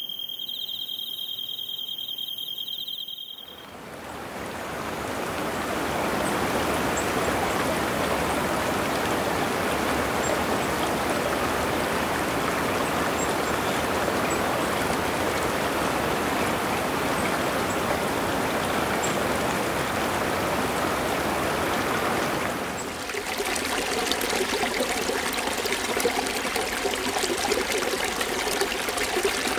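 Insects chirping in a steady, high-pitched trill, which cuts off after about three seconds. Then a mountain stream's water rushes in an even, steady wash. About two-thirds of the way through, the sound switches to another stream: water splashing and trickling down a small cascade over boulders.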